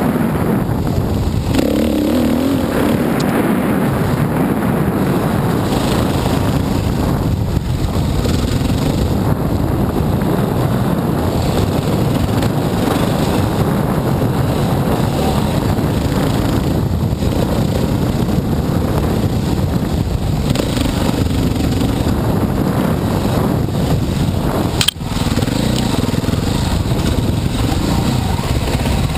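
Dirt bike engine running as the bike is ridden along a trail, its pitch rising and falling with the throttle, picked up by a helmet-mounted camera. A single sharp click with a momentary dropout about 25 seconds in.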